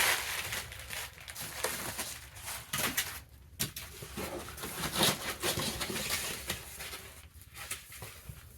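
Packaging rustling and crinkling in an irregular run of rustles and small clicks as the next item is pulled out and unwrapped, growing fainter near the end.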